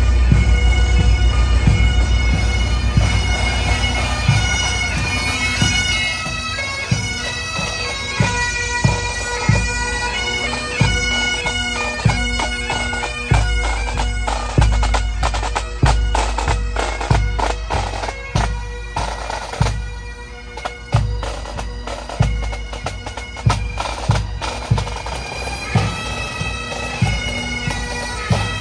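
Pipe and drum band playing: bagpipes sound a tune over their steady drones while the drums beat time.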